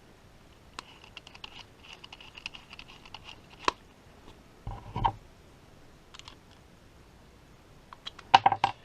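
Small clicks and taps of metal and plastic parts being handled as the collet on a cordless rotary tool is changed to take a wire brush attachment. There is a dull knock about five seconds in and a cluster of louder clicks near the end. The tool's motor is not running.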